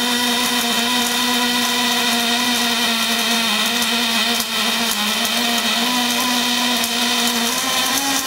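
Robotic arc welding on a steel axle tube: the welding arc burns continuously, a steady hiss with a steady hum running under it.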